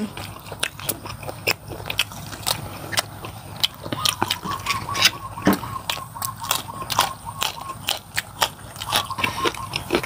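Close-up crunching and chewing of raw green vegetable stalks eaten with noodle soup: a run of sharp, irregular crunches throughout.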